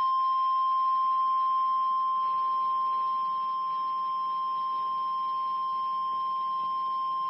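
NOAA Weather Radio warning alarm tone: one steady, unbroken 1050 Hz tone, the signal that an urgent warning broadcast, here a tornado warning, is about to follow.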